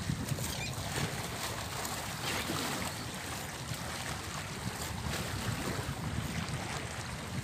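Wind buffeting the microphone over small sea waves washing against shoreline rocks, a steady rumbling hiss with faint splashes.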